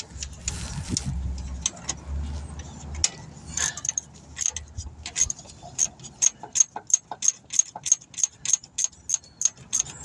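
Socket ratchet clicking in quick, even strokes, about three clicks a second, as a stuck AC compressor mounting bolt is worked loose. A low rumble and a few scattered clicks come in the first few seconds.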